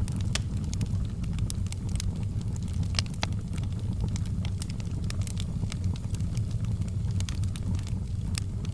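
Wood fire burning in a fireplace: scattered sharp crackles and pops over a steady low rumble of the flames.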